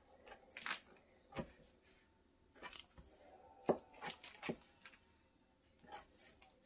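Kitchen knife cutting down through a slab of soft raw vegan-ham dough in a plastic bag on a wooden cutting board. The blade gives a few faint, short knocks and scrapes, scattered irregularly.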